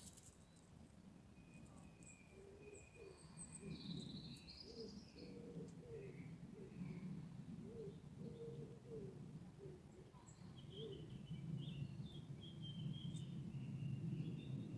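Several wild birds calling faintly: scattered high chirps and short whistled phrases, with a run of short, repeated low notes in the middle. A steady low rumble runs underneath.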